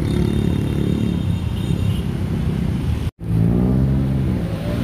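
A motor vehicle engine running, its pitch sliding down and back up as the engine speed changes. The sound drops out for an instant about three seconds in.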